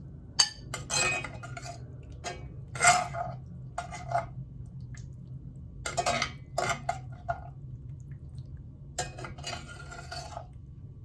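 Serving utensils clinking and scraping against a pot and plate as cooked food is dished up, in short irregular clatters over a steady low hum.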